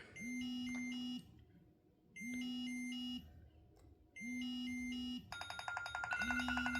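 An electronic alarm sounds in bursts of about a second, every two seconds. Each burst has a steady low buzz under a pattern of high beeps. About five seconds in, a second alarm joins with a rapid run of chiming tones.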